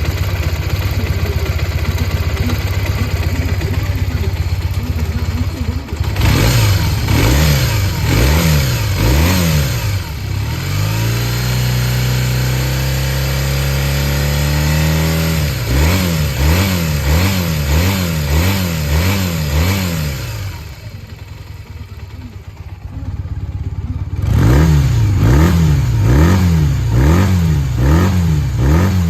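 Honda CM250T/CB250T parallel-twin motorcycle engine running: it idles steadily, then is blipped repeatedly with quick rises and falls in revs, is brought up slowly and held higher for a few seconds, blipped again, drops quieter for a few seconds near the end of the second third, and is blipped again. A working engine that the seller says runs without abnormal noise.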